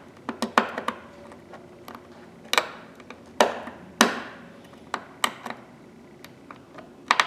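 Sharp metallic clicks and snaps of needle-nose pliers gripping and slipping off the small keeper in a 1/4-inch ratchet head, with the jaws knocking against the steel. They come at irregular intervals, a dozen or so, some in quick pairs.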